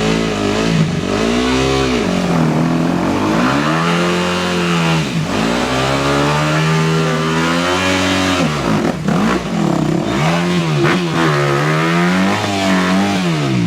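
Off-road vehicle's engine revving hard and easing off, over and over, its pitch rising and falling every second or two.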